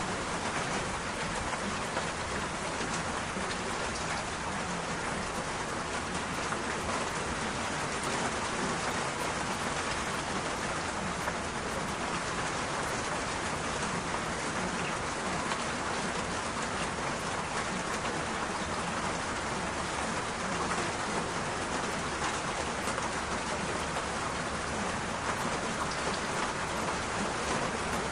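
Steady rain falling, an even, unbroken hiss with no let-up.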